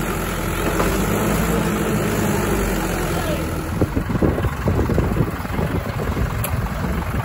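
Mahindra 575 DI tractor's diesel engine running steadily, the sound turning choppy and uneven from about four seconds in.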